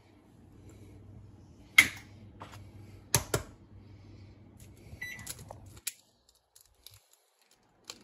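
Sharp knocks of eggs and eggshell against a stainless steel bowl and a glass dish while eggs are separated by hand: one loud knock about two seconds in, a quick double knock about a second later, and a lighter one near six seconds. A steady low hum runs underneath and stops about six seconds in.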